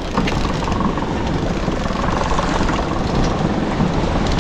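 Boat motor running with a steady rumble, mixed with wind and water noise.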